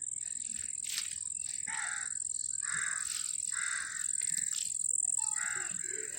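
Crows cawing repeatedly, one call about every second, over a steady high-pitched tone.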